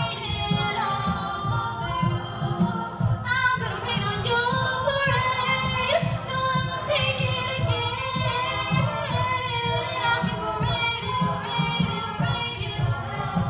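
An a cappella vocal group singing in harmony, several voices over a low bass part that pulses in a steady rhythm.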